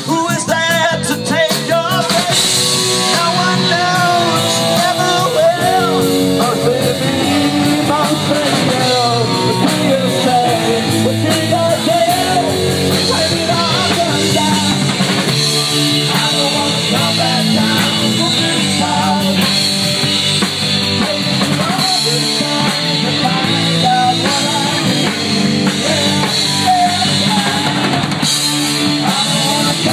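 Live rock band playing loudly: electric guitars, bass guitar and drum kit, with a singer.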